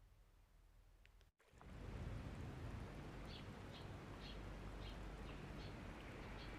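A bird chirping repeatedly, short high chirps about two a second, over a steady outdoor background hiss that cuts in abruptly after a brief silence about a second in.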